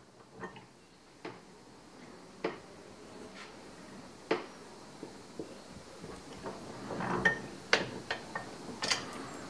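Light, scattered metallic clicks and knocks as a knife handle is shifted between two steel ball bearings in the jaws of a bench vise, the setup used to flare the handle's lanyard tube; about a dozen small impacts, bunched together near the end.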